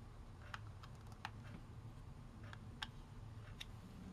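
Faint, irregular small clicks and taps of plastic, about five in four seconds, as the plastic housing of a solar LED garden light is worked at and pulled apart, over a low steady hum.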